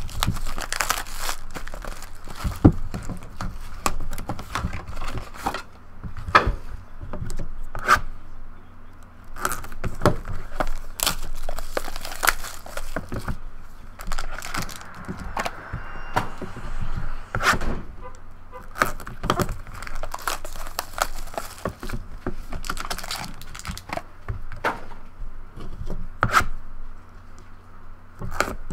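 Cardboard and plastic wrappers tearing and crinkling as a trading-card hobby box is opened by hand and its packs and cards are handled: an irregular run of rustles, snaps and clicks.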